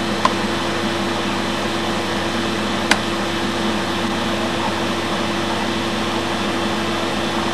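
A steady machine-like hum with hiss, holding one level throughout, broken by a single sharp click about three seconds in.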